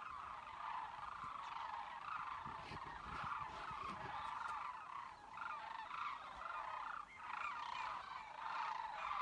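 A large flock of sandhill cranes calling as it flies overhead, many birds' calls overlapping into one steady chorus.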